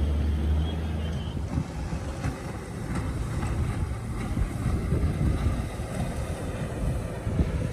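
Wind buffeting the microphone, with the outboard motor of a passing motorboat running in the distance.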